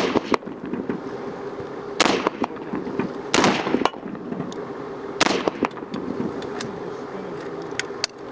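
M14 rifle firing single 7.62 mm shots: three loud reports about a second and a half to two seconds apart, each with a brief echo, and fainter pops in between.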